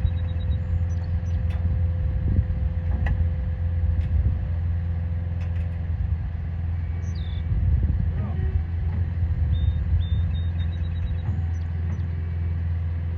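Outdoor tornado warning siren sounding one faint, steady, held tone that fades out about ten seconds in, under a louder steady low rumble.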